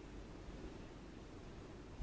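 Faint steady background noise: a low rumble under an even hiss, with no distinct sounds standing out.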